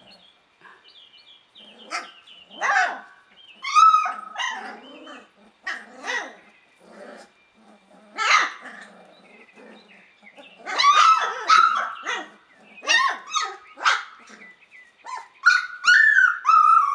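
A litter of young puppies yipping and whining: short high yelps scattered throughout, with several cries that fall in pitch. Near the end comes a longer whining cry, very sad-sounding, that slides slowly downward.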